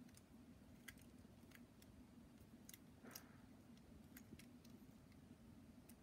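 Near silence, with a handful of faint, irregular clicks from the number dial of a cheap four-dial combination padlock being turned.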